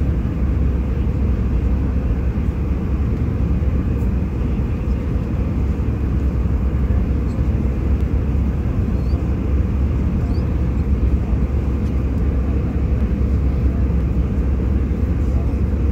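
Steady airliner cabin noise heard from an economy seat of an Airbus A319 during its descent: a constant low rumble and rush of engines and airflow.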